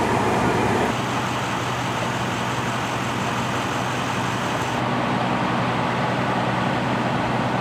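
Steady running of idling vehicle engines over street traffic noise. The sound changes abruptly about a second in and again near five seconds.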